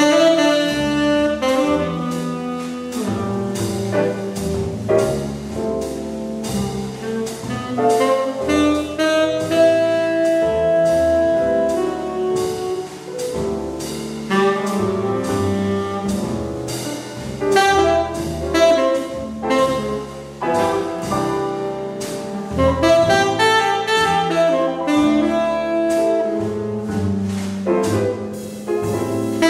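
Tenor saxophone playing a jazz ballad melody, with some long held notes, over piano and double bass accompaniment.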